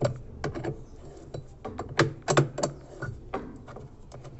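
Irregular metallic clicks and clinks of a 13 mm wrench backing out a loosened bolt on a washing machine.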